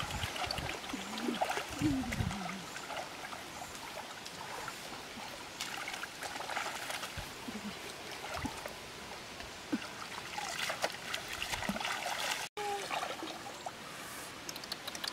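Water trickling and splashing, with a few short pitched calls in the first couple of seconds.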